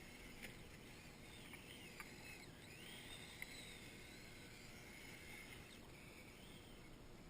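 Faint whine of a Kyosho Blizzard EV radio-controlled snow vehicle's electric motor, gliding up and down in pitch as the throttle changes, with a few light ticks.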